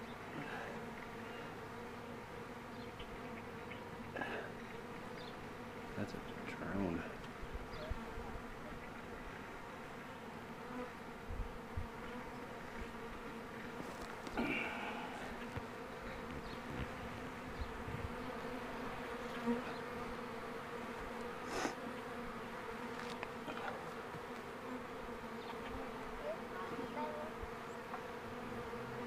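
Honeybees buzzing around the entrance of a freshly installed hive: a steady hum, with a few brief sharper sounds.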